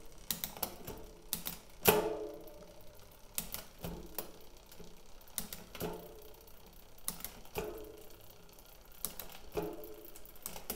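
SRAM GX Eagle 12-speed mountain-bike drivetrain, cranked by hand while being shifted down the cassette one gear at a time. A sharp shift click comes every second or two as the chain climbs onto the next cog, over the quiet running of the chain.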